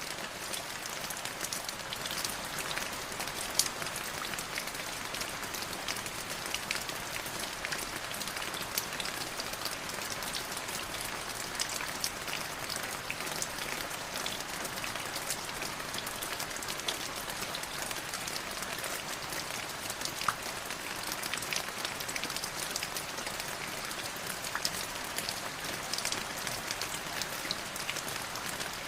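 Light drizzling rain: a steady hiss of fine rain with many small drops ticking and pattering on a surface.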